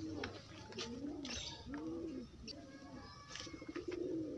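Domestic pigeons cooing: a run of low, arching coos, about one a second, with a few sharp clicks and rustles between them.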